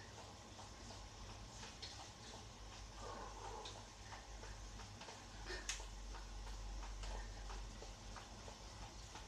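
Indoor spin bike being pedalled hard: faint, uneven ticks and clicks from the bike over a low steady hum, with one sharper click a little past halfway.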